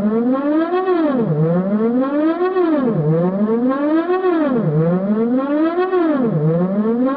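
Synthesized alarm siren, a single pitched tone sweeping up and down over and over: a slow climb in pitch followed by a quicker drop, repeating about every 1.7 seconds.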